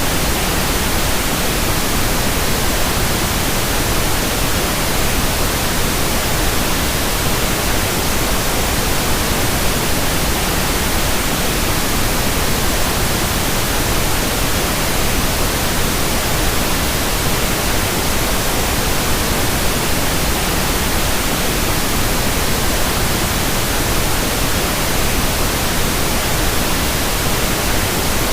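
Steady synthetic masking noise for tinnitus: a constant, even hiss spread across all pitches, unchanging throughout.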